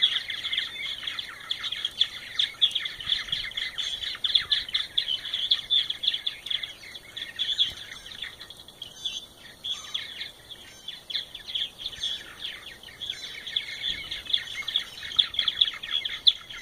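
Purple martins calling in a steady, dense chatter of quick gurgling chirps, thinning briefly about halfway through before picking up again.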